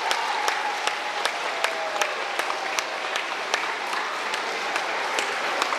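Audience applauding, with one nearby clapper's claps standing out in a steady beat of about two and a half a second.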